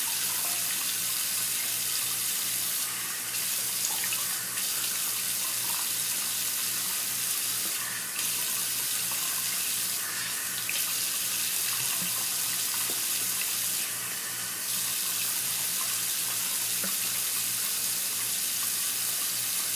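Water running steadily from a tap into a sink while shaving lather is rinsed off under it. The splashing briefly changes character a few times as the stream is interrupted.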